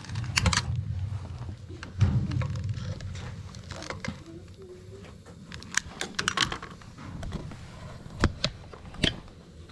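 Sharp clicks as a gas boiler's pilot control knob is held down and turned to light the pilot: a couple about a second in, a quick cluster around six seconds in, and two more near the end, over a low rumble early on.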